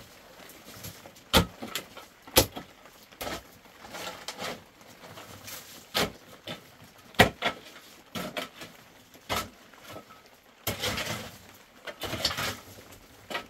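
A short-handled hoe striking hard, stony dirt, with sharp knocks about once a second and stones clinking. Near the end it changes to longer scraping and raking sounds.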